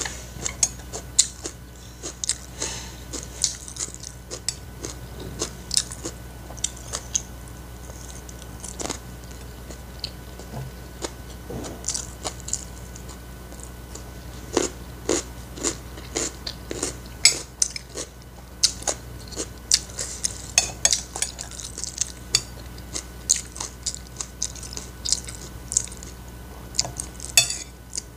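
Close-miked eating sounds: wet chewing and crisp crunches of fried rice, fried chicken and raw green bird's eye chilli, with spoon and fork now and then clinking and scraping on a ceramic plate.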